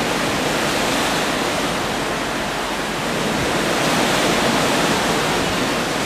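Steady, loud rushing noise of wind and a rough, wind-whipped sea.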